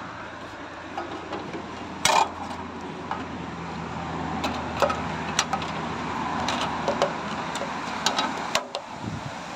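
Scattered metallic clicks and knocks from hands handling the cap of a truck's LNG filling receptacle and its metal grab rail, the loudest knock about two seconds in, over a steady low hum.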